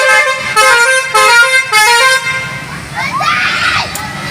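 Bus 'telolet' horn, a multi-note musical air horn, playing a tune of several stepped notes. Excited shouting voices take over about three seconds in.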